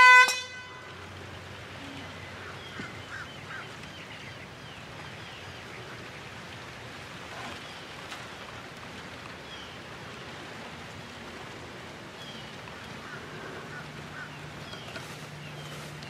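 A handheld air horn blast, a loud, steady single tone that cuts off about half a second in. Quiet open-air ambience with faint scattered chirps follows.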